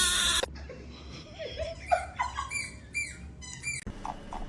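A short loud burst of hissing noise at the start, then a kitten giving a quick series of short, high-pitched mews and squeaks with sliding pitch.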